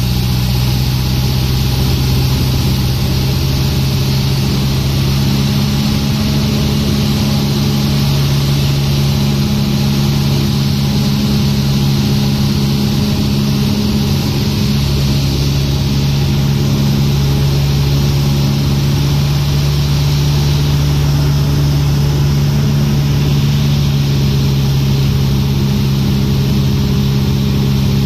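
Cessna 150's four-cylinder Continental O-200 engine and propeller droning steadily, heard from inside the cabin on final approach.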